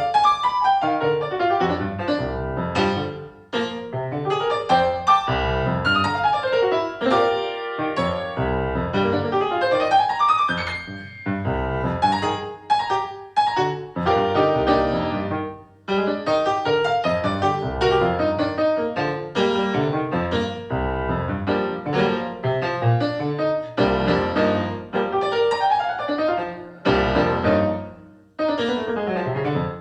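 Instrumental music played on a piano-like keyboard, with chords and a melody of struck notes. It breaks off briefly three times: a few seconds in, about halfway, and near the end.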